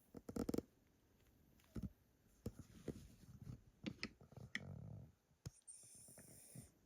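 Elderly Pomeranian asleep: irregular soft clicks and mouth smacks, loudest in a quick cluster right at the start, a short raspy snore a little before the five-second mark, and a hiss near the end.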